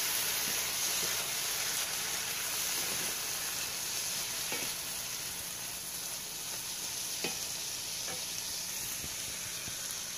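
Corn kernels sizzling in browned butter in a skillet while being stirred with a wooden spatula, a steady hiss with a few light taps of the spatula against the pan.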